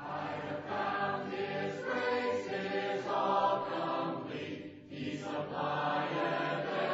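Choir singing with long held notes, briefly dipping between phrases near the five-second mark.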